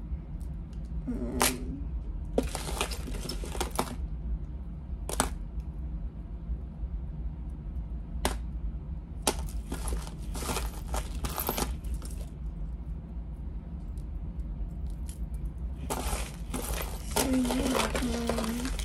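Metal costume jewelry being handled and sorted: chains, pendants and charms clink and rattle in short spells of clatter, several times over, above a steady low hum.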